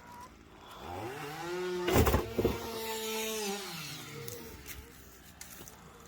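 A chainsaw revved once: its pitch climbs, holds for about two seconds, then falls back toward idle. Two sharp knocks about half a second apart come at the height of the rev and are the loudest sounds.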